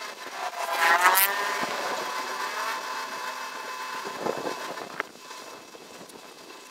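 A vehicle engine revs up sharply about a second in, then runs on steadily and grows quieter over the last couple of seconds, with a few light knocks.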